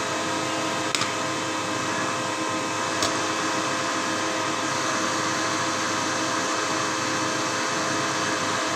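CNC machine running steadily, a constant hum of several tones over an even whir, with two sharp clicks about one and three seconds in.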